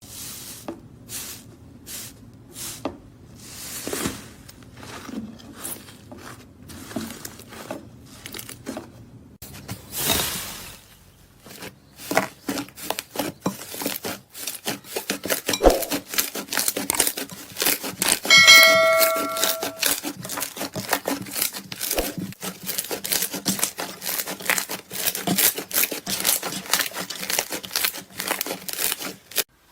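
Slime being squeezed, pressed and stretched by hand, giving a run of crackling and popping that grows denser about halfway through. A short ringing tone sounds about two-thirds of the way in.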